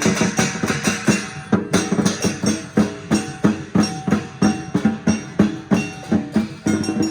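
Lion dance percussion: a large drum beaten in a fast, steady rhythm with clashing cymbals and gong.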